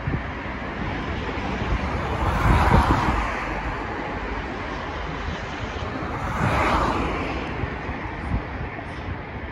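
Street noise with vehicles passing close by: a rumble that swells and fades about two and a half seconds in and again around six and a half seconds, with wind buffeting the microphone.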